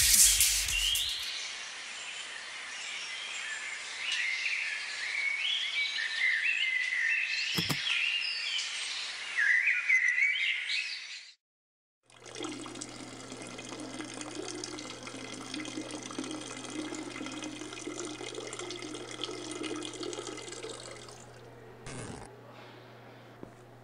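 Birds chirping and warbling over outdoor background noise, cut off suddenly about eleven seconds in. After a moment of silence, water runs steadily from a tap into a sink, with a low steady hum under it, until it fades near the end.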